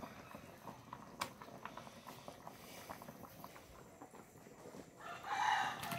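A pot of soup at a rolling boil, bubbling with a patter of small irregular ticks. About five seconds in, a rooster crows loudly over it, the loudest sound here.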